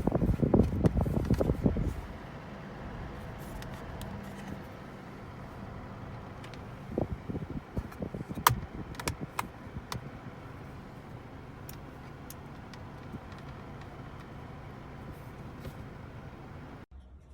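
Steady low hum of a car interior. There is a loud burst of knocking and rumbling in the first two seconds, and a run of sharp clicks and knocks in the middle, like plastic parts being handled.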